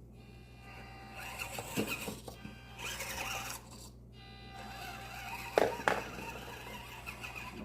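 A few sharp clicks and knocks of small hard plastic parts being handled, the loudest a pair about five and a half seconds in, over steady background music.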